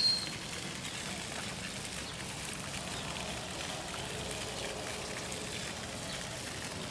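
Steady hiss of running, splashing water, as from a pond fountain, with a short high squeak right at the start.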